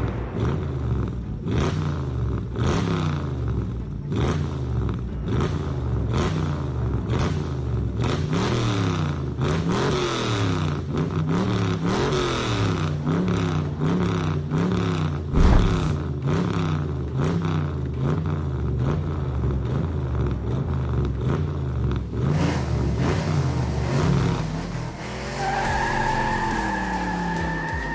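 Car engine revving up and falling back over and over, with one loud thump about halfway through. Near the end, tyres squeal steadily in a burnout.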